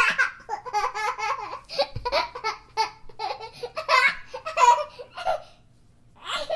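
A baby laughing in a long run of quick bursts, with a short break near the end before another laugh starts.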